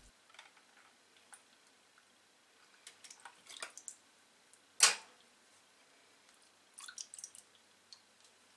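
Small splashes and drips of salt water in a plastic bowl as hands squeeze raw mullet roe sacs to press out the remaining blood. One sudden sharp sound about five seconds in is the loudest.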